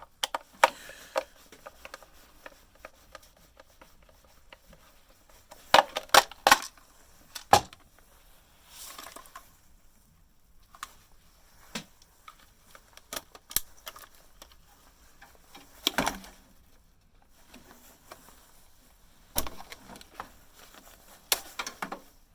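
Bread maker parts being handled and pulled apart by hand: scattered sharp clicks, knocks and clatters of metal and plastic pieces, coming in small clusters every few seconds.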